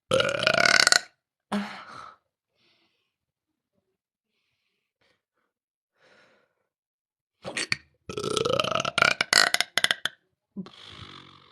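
A woman belching loudly: a burp of about a second, a shorter one just after, then a pause and a longer burp of about two and a half seconds near the end.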